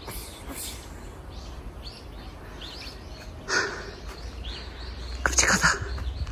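Small birds chirping in the trees: short high calls repeating about every half second. A louder noise close to the microphone comes about halfway through, and a cluster of them comes near the end.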